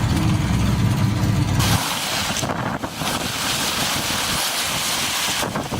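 Wind blowing across the microphone on a sailboat under way, with water noise. A low rumble at the start stops abruptly under two seconds in, where the hiss of wind and water takes over.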